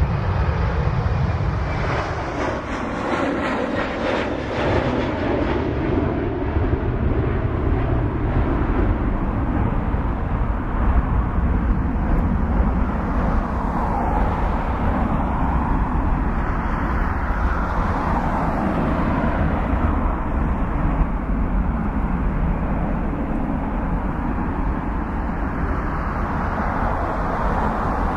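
Boeing 777-300's twin jet engines at taxi power as the airliner rolls past, a steady jet roar with a deep rumble, swelling and brightening briefly about two to five seconds in.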